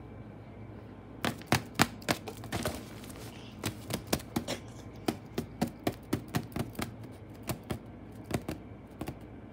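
Irregular sharp taps and rattles on a pop-up fabric cat tent as a feather wand toy and a playing cat strike it, a few a second, starting about a second in.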